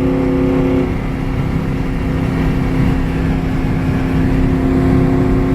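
Ford Crown Victoria Police Interceptor's 4.6-litre V8 and drivetrain heard from inside the cabin while cruising: a steady low drone with whining tones, the higher whine stopping about a second in. The engine is misfiring severely and the automatic transmission, run with no fluid, is shifting badly.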